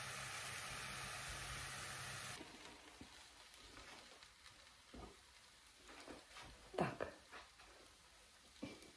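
A blin (thin pancake) sizzling in a hot frying pan, a steady hiss that cuts off abruptly about two seconds in. After that it is quiet, with a few soft knocks of a plate being handled.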